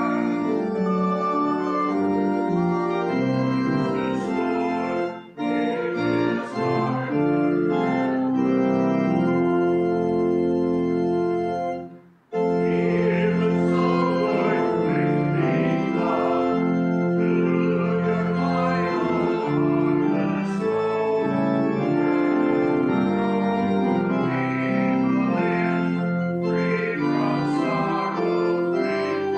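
Church organ playing a hymn in sustained chords, with a brief break in the music about twelve seconds in.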